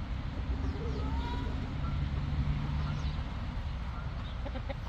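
A low, steady rumble with a few faint, short chicken calls above it.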